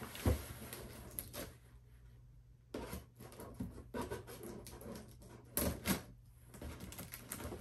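Cardboard shipping box being handled and opened by hand: irregular knocks and taps, with scraping and rustling of the cardboard between them.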